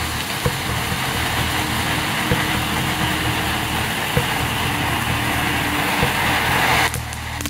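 Ground fountain firework spraying sparks with a steady loud hiss that cuts off suddenly near the end, over background music.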